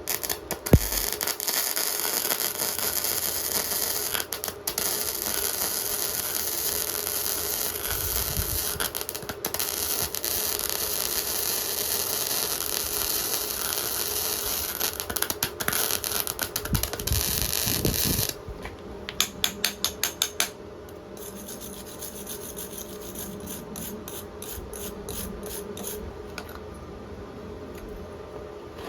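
Gasless flux-cored arc welding with a SUZUKID Buddy140 semi-automatic welder: the arc crackles steadily for about eighteen seconds, with a few short breaks, then stops. About seven quick sharp ticks follow over a couple of seconds, then only a faint steady background.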